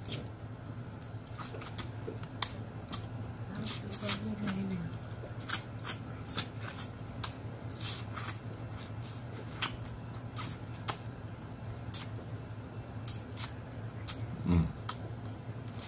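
Blue crab shell being picked apart by hand and eaten: an irregular run of sharp clicks and cracks of shell and mouth, over a steady low hum.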